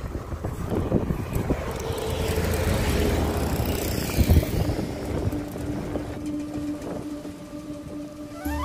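Road traffic on a mountain highway heard from a moving bicycle: a bus and cars approach and pass, their noise swelling about two to four seconds in, with wind on the microphone. A flute tune comes in right at the end.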